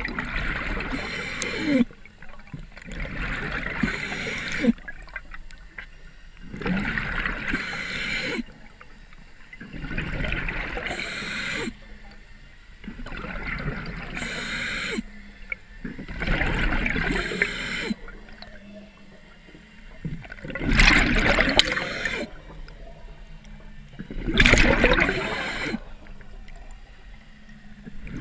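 Scuba diver breathing through a regulator underwater: bursts of exhaled bubbles gurgling past the camera about every three to four seconds, the last two the loudest.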